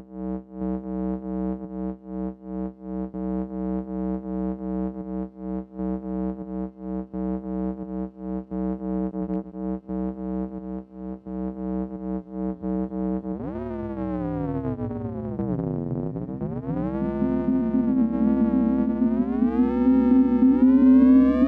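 Doepfer Dark Energy analogue synthesizer playing a steady low note chopped into rapid on-off pulses. About two-thirds of the way in, the note turns continuous, swoops up, dips down, then climbs steadily higher in pitch and grows louder.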